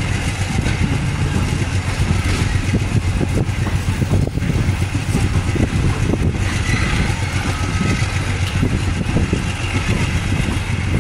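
Moving diesel-hauled passenger train heard from a coach window: a steady rumble of wheels on rail mixed with wind noise, the locomotive's engine running up ahead.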